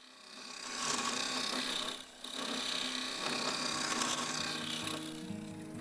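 Negative rake scraper cutting across a yew and epoxy-resin hollow form spinning on a wood lathe: a steady scraping hiss that breaks off briefly about two seconds in, then resumes.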